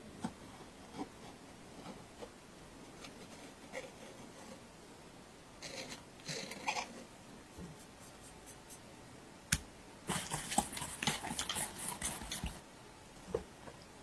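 Quiet kitchen handling sounds: faint taps and scrapes of a knife slitting and scraping a vanilla bean on a wooden cutting board. Then, about ten seconds in, a wire whisk clatters and scrapes around a stainless steel bowl for a couple of seconds as batter is mixed. This is the loudest part.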